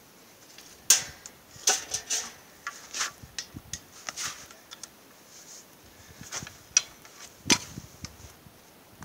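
Irregular clicks, knocks and light rattles of hands working on a hot saw's engine and frame, with the engine not running. The sharpest knocks come about a second in and again near the end.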